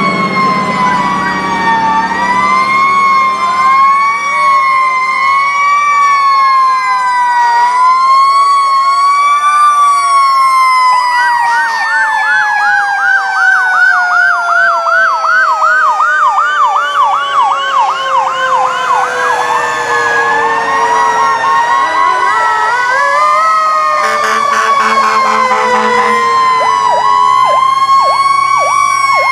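Several fire truck sirens sounding at once as the apparatus pass. Slow rising-and-falling wails overlap a fast yelp of about three to four cycles a second in the middle and again near the end. One siren's pitch slides slowly down over about ten seconds.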